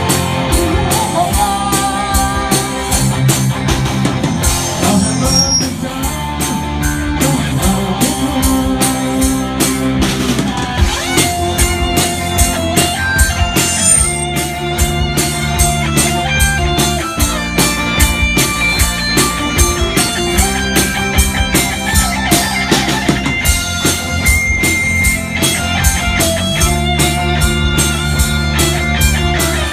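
A live rock band playing a song: drum kit keeping a steady beat under bass and electric guitar.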